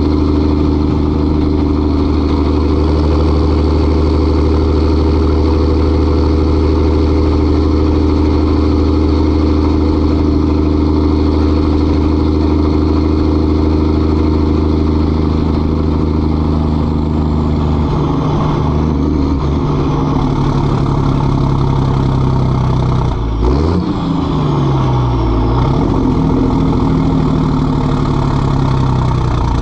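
1988 Mack R model diesel truck engine running loud through straight five-inch dual exhaust stacks with no mufflers, pulling at a steady note. About two-thirds through the note changes, and the engine pitch falls and then climbs again, as with a gear change.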